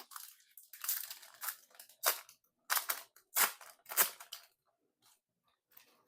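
Foil wrapper of a Magic: The Gathering booster pack being opened, crinkling and crackling in a handful of short bursts over about three seconds.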